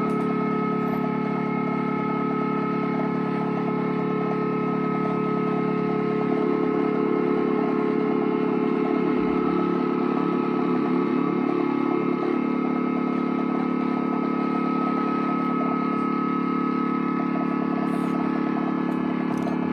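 Experimental drone music from an electric guitar and effects-pedal rig: a dense, steady wall of sound made of several held tones. From about six seconds in, a wavering, fluttering layer swells in the lower middle and fades out a few seconds before halfway through the remaining time.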